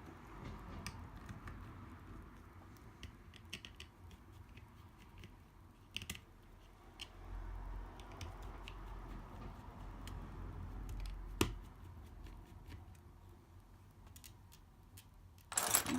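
Faint scattered clicks and taps of small hand tools working on an opened iPad, with two sharper clicks about six and eleven and a half seconds in.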